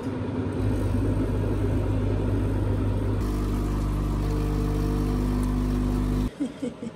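Automatic coffee machine running as it dispenses coffee into a mug: a rougher stretch first, then from about three seconds a steady pump hum while the coffee pours. It cuts off suddenly about six seconds in.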